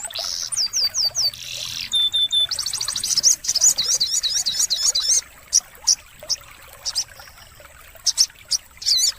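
Sogon bird calling: fast series of high, sweeping whistled notes and chatter, thinning to a few single notes with pauses just past the middle before picking up again near the end.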